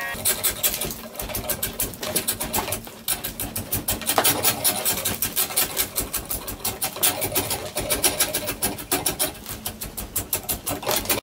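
A steel draw knife being pulled along a hickory log, shaving the bark off in quick, rhythmic scraping strokes, about four or five a second.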